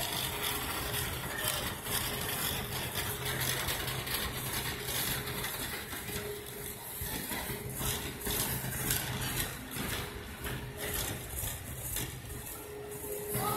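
Wire shopping cart rolling over a smooth supermarket floor: a continuous rattle with scattered clicks, over a steady hum that comes and goes.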